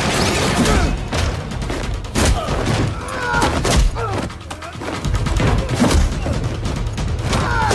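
Action-film soundtrack: a quick series of hits, bangs and thuds over background music, with a few short voice-like shouts or grunts around the middle and near the end.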